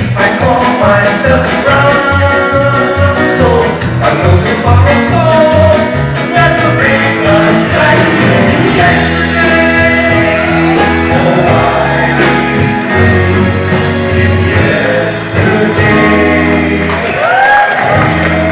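Live band performance: two male singers singing into microphones over drums and electric guitar.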